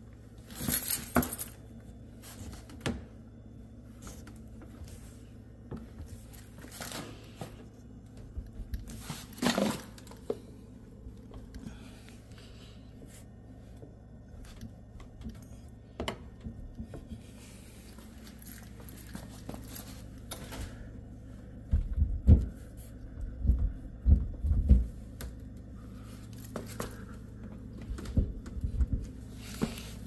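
Scattered clicks, rubs and light knocks from a hand moving along a countertop edge and cabinet front, mixed with handling noise from the phone. A louder cluster comes right at the start, and several low thumps come in the last third.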